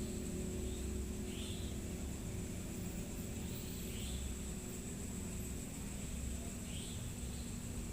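Night-time ambience of an empty building: a steady low rumble and a constant thin high whine, with short chirps every one to two seconds.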